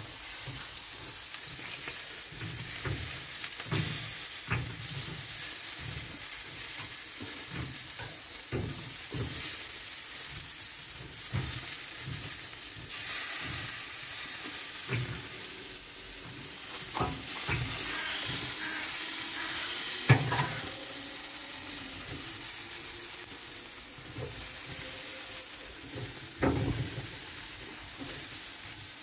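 Jerk chicken sizzling on the grate of a charcoal grill: a steady hiss, broken by occasional short knocks, the loudest about twenty seconds in.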